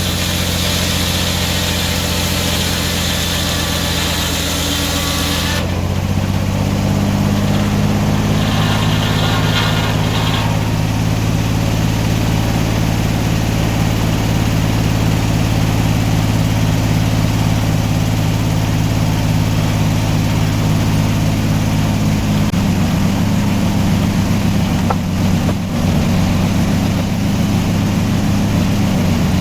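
Homemade sawmill's engine running steadily under a homemade governor. A high hiss over it stops about six seconds in, and the engine note shifts slightly as it does.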